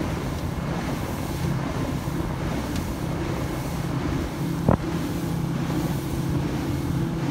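Motorboat under way on calm water: its engine hums steadily, with wind and water rushing past the hull. A single sharp thump comes about halfway through.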